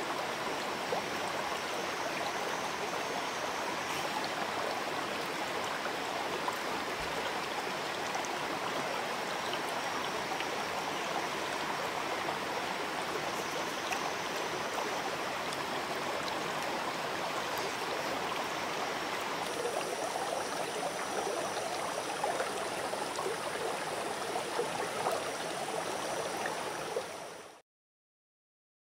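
Shallow rocky stream flowing over stones, a steady rush of water that cuts off abruptly near the end.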